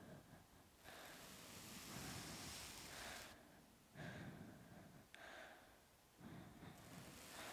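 Fingers scratching and rubbing a person's scalp and hair in slow strokes: three faint, hissing swells of one to two seconds each, with short pauses between.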